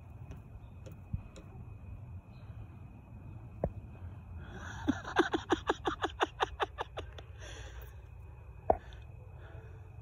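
American robin pecking at its own reflection in a car's side mirror, a territorial attack on what it takes for a rival. It makes a rapid run of about a dozen sharp taps, about five a second, a little past the middle, with a single tap before and another after.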